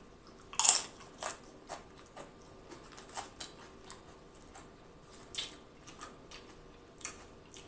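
Crunching and chewing a loaded nacho tortilla chip close to the microphone: a sharper crunch under a second in, then many softer, irregular crunches as it is chewed.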